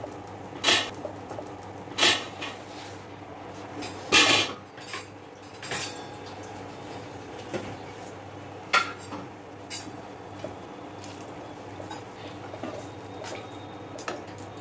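Steel ladle clanking and scraping against a kadhai as a curry is stirred: several sharp metal clanks a second or two apart, the loudest about four seconds in, then only light taps and scrapes.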